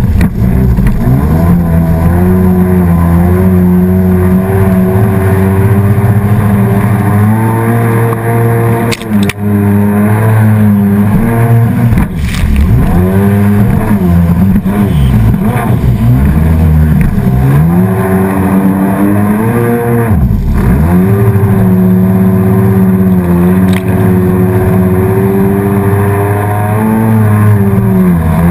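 Motorboat engine running under way, its pitch sagging and climbing again as the throttle changes, around ten seconds in and again near twenty, over water rushing and splashing close by.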